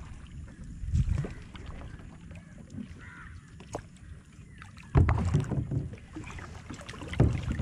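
Paddle splashes and water sloshing around a plastic sit-on-top kayak in shallow water, with three louder low splashes or knocks, about a second in, about five seconds in and near the end.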